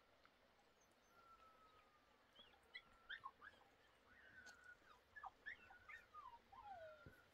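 A dog whining faintly: a run of high, drawn-out whines and short yelps, some falling in pitch.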